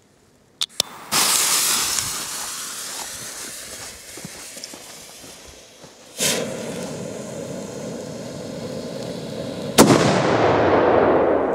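Cobra Matabrujas firecracker: two small clicks, then its lit fuse hissing and sputtering for several seconds, then a single sharp bang near the end, followed by a noisy fading tail.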